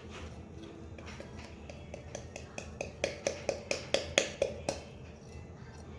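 Stir stick clicking and tapping against a bowl while stirring glue and borax solution into slime. Faint taps at first, then a quick run of sharp clicks, about four or five a second, from about three seconds in, stopping just before the end.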